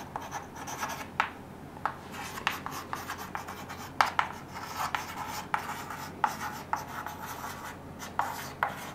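Chalk writing on a chalkboard: a string of irregular short taps and scratches as the chalk strokes across the board.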